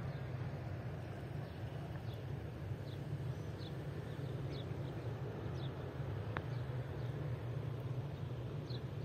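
Birds chirping outdoors, short high notes that drop in pitch, about one a second, over a steady low rumble of wind on the microphone.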